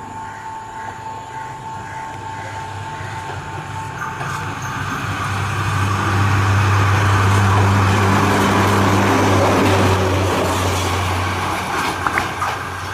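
Lanka Ashok Leyland bus converted to a rail bus, its diesel engine and running gear on the rails approaching and passing close by. A steady low engine hum grows louder, peaks in the middle, then eases off.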